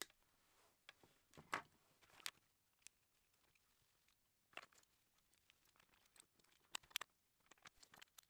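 Faint, scattered snips and clicks of small hand tools on mains cable: side cutters cutting through the flex, wire-stripping and handling of the wire ends, and a screwdriver at a plug top's terminals. The clicks are sharp and brief with gaps between them, loudest about one and a half and two seconds in.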